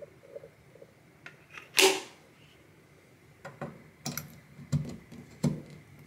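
A sharp click as the concentrator nozzle is fitted onto a Dyson hair dryer, then a run of lighter clicks and knocks as the dryer's power plug is handled and pushed into a wall socket. The dryer is not running.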